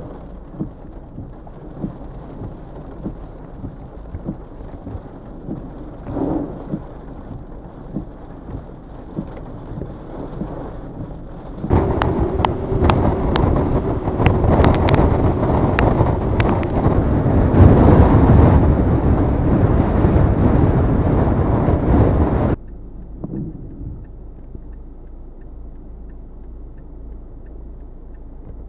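Hurricane wind and heavy rain rushing across the microphone. About twelve seconds in the noise turns much louder, with sharp ticks, for about ten seconds. It then drops back to a lower, muffled rush.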